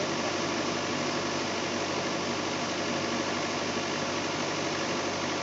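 Link-Belt excavator's diesel engine running steadily at idle.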